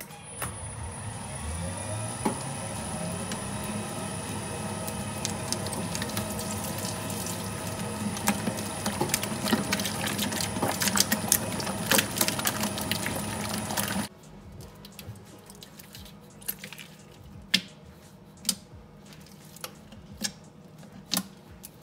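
Electric mixer motor starting up and rising in pitch over about two seconds, then running steadily while the beater works a batch of slime with many wet slapping clicks; it cuts off suddenly about 14 seconds in. After that, quieter scattered squishes and clicks of the slime.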